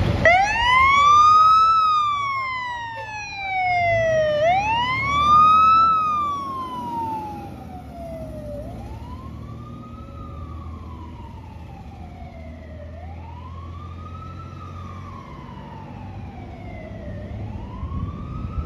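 Fire truck siren wailing, its pitch rising quickly and then falling slowly, about once every four seconds. It is loud for the first six seconds, then fades as the truck drives away.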